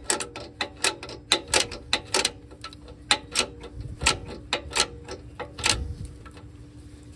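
Hand ratchet clicking in short, uneven strokes as the nuts on a new upstream O2 sensor's exhaust studs are tightened with little room to swing. The clicks thin out about six seconds in.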